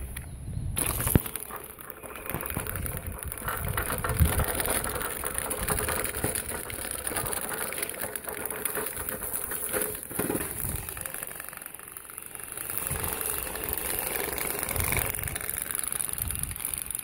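Homemade tracked RC loader running on 12 volts: its two electric drive motors run while the metal tracks and drive sprockets rattle and clank as it crawls. A sharp click comes about a second in.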